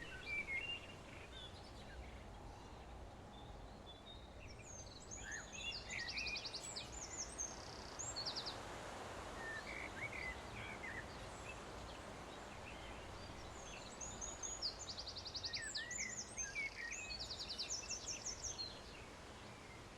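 Several songbirds singing and chirping over a faint steady hiss of background ambience, with bursts of fast, high trills about five seconds in and again from about fourteen seconds.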